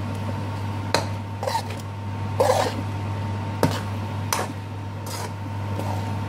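Metal spoon scraping and clinking against a frying pan as cooked rice is stirred and turned, with a few sharp knocks among the scrapes, over a steady low hum.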